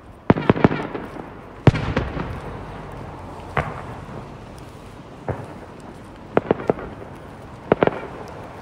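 Aerial fireworks shells bursting: about a dozen sharp bangs, some in quick groups of two or three, each trailing off in a rumbling echo.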